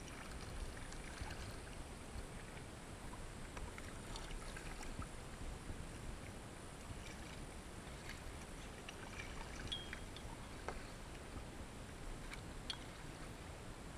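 Kayak paddle strokes in river water: small splashes and drips as the blade dips, over a steady wash of water moving along the hull. Two brief high chirps come in about ten and thirteen seconds in.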